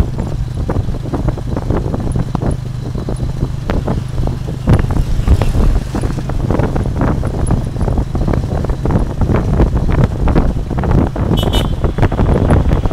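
Ride in a motorcycle-drawn tuk-tuk carriage on a rough dirt road: the motorbike engine runs with a steady low hum under a constant, irregular clatter of rattles and knocks from the carriage, with wind on the microphone. A short high beep sounds near the end.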